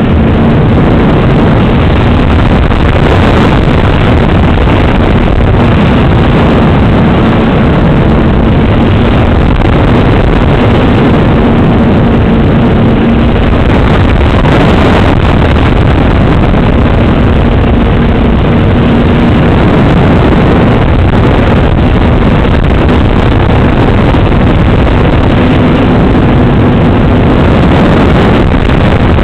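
An RC model airplane's motor and propeller heard through the onboard camera's microphone in flight: a loud, steady drone under heavy wind rush, with a low hum that fades and returns from time to time.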